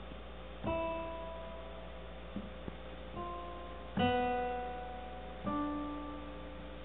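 Digital piano: four slow chords struck one after another, each left to ring and fade, the third the loudest.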